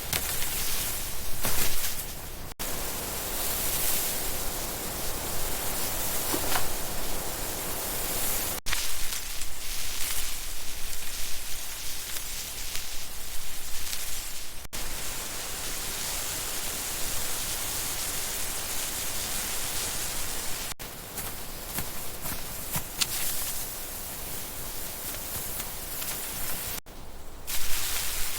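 Steady outdoor ambient hiss with a few faint rustles and clicks. Its character changes abruptly about every six seconds, where separate recordings are cut together.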